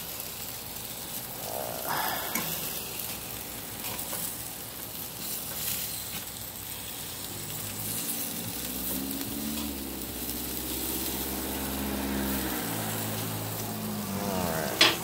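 Chicken thighs sizzling on the grates of a gas grill. About eight seconds in, a low humming drone with a few steady pitches comes in over the sizzle and cuts off about five seconds later, and a sharp click sounds near the end.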